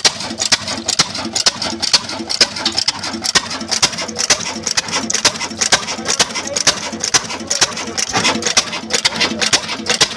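An old stationary diesel engine running, its firing strokes making a rapid, regular knocking beat.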